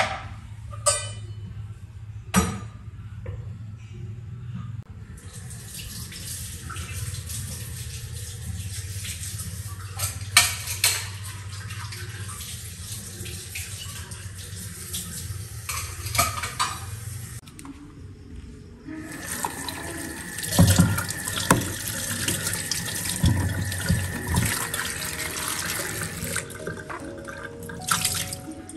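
Kitchen sink tap running, in two long runs with a short break between, the water splashing into the sink basin and a plastic container. A few knocks of dishes and containers being handled come before and between the runs.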